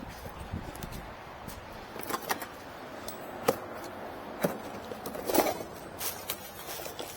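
Scattered sharp clicks and knocks, a few at a time, from a new front CV axle and its cardboard box being handled as it is unpacked.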